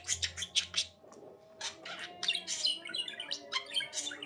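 Budgerigar chattering, a fast run of short, high chirps and twitters with hardly a pause.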